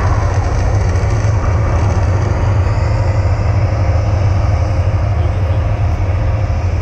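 Deep, steady rumble of a man-made volcano attraction's eruption, with an even hiss above it.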